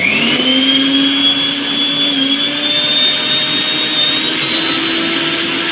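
Butterfly Rapid+ mixer grinder motor switched on and spinning up to full speed: a loud whirr with a high whine that rises quickly at first, then keeps creeping slowly higher in pitch.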